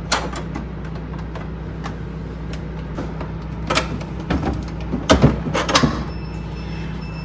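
Sharp plastic clicks and knocks as a replacement refrigerator water filter cartridge is pushed into its housing and pops into place. There are several separate clicks, the loudest about five seconds in, over a steady low hum.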